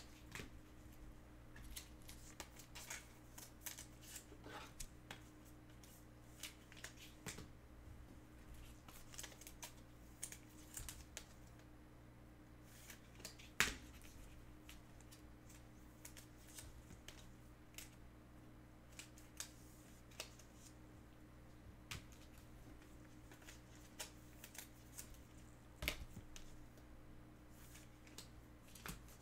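Faint, scattered light clicks and taps over a low steady hum, with one sharper click about halfway through and another near the end.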